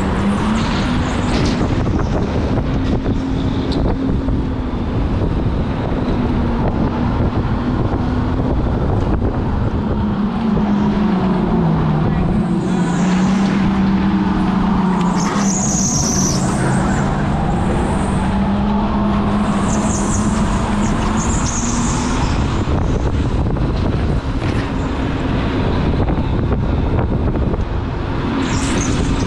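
Electric go-kart running flat out: a steady motor whine over the rumble of the kart on the track. The whine drops in pitch around the middle as the kart slows and then climbs again as it speeds back up, with brief high squeals along the way.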